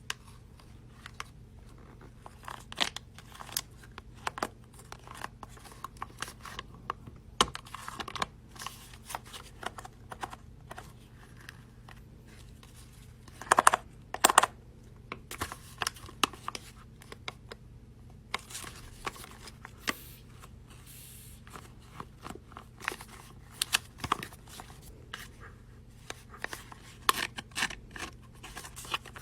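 Hands working paper for a homemade fidget toy: irregular rustling, cutting and tearing noises, with a louder cluster about halfway through, over a faint steady low hum.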